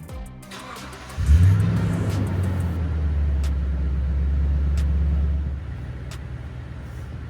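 Pickup truck engine cranked and catching about a second in with a flare of revs, then running at a raised idle before dropping to a lower, steady idle about five and a half seconds in.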